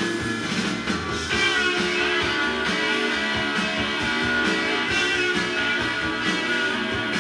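Guitar-led rock music playing from a vinyl record on a Yamaha YP-B4 belt-drive turntable, at a steady level.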